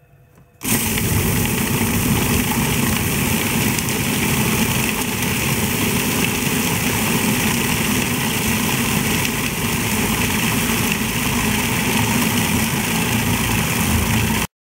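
Electric food processor running, its blade grinding chunks of wild boar shank and lotus root into mince. It switches on abruptly about a second in, runs steadily, and stops suddenly just before the end.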